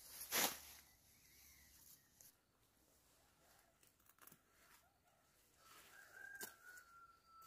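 Leafy green plants and dry grass being cut with a machete and gathered by hand: a short loud rustle about half a second in, then soft scattered rustles and a faint stroke near the end. A faint, thin, high held tone sounds over the last second and a half.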